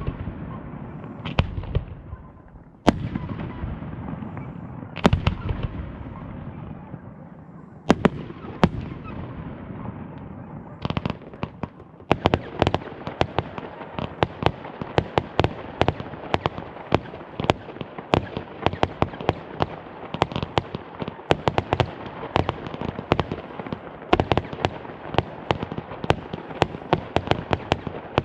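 Fireworks: loud single shell bursts a second or a few seconds apart, each with a long fading tail. About halfway through, a dense rapid barrage of bangs and crackles begins and keeps going.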